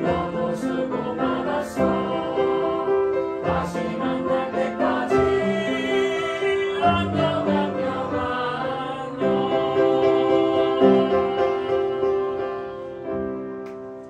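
A group of children and adults singing a song together, accompanied by an upright piano. The sound dies down near the end.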